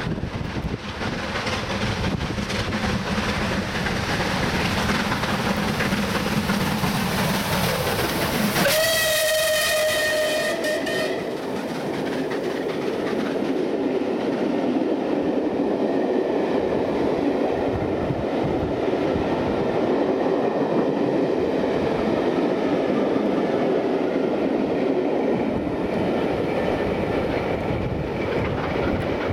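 Steam locomotive, the Merchant Navy class 4-6-2 No. 35028 Clan Line, passing at speed. It gives one steam-whistle blast of about two and a half seconds about nine seconds in. Then its train of coaches rushes past with a steady clatter of wheels on the rails.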